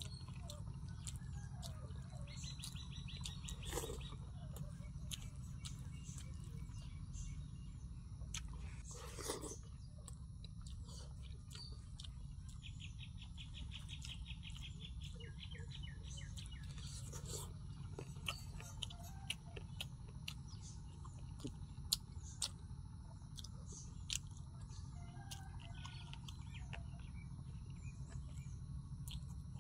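A small bird trills in two spells, one early and a longer one near the middle, over a steady low hum. Scattered soft clicks come from a hand mixing and scooping rice on a banana leaf and from eating.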